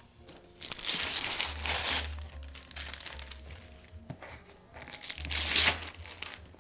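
Gift wrapping paper being ripped off a cardboard toy box and crumpled by hand: two loud tearing, crinkling stretches, about a second in and again near five seconds, with softer rustling of paper between.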